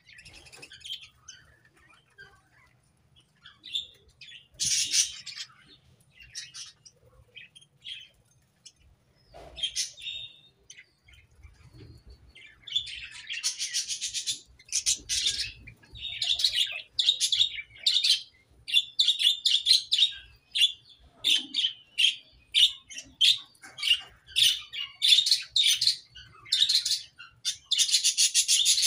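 A flock of budgerigars chirping in an aviary. The calls are scattered at first, then from about halfway through they come as a dense run of chirping bursts, roughly one a second.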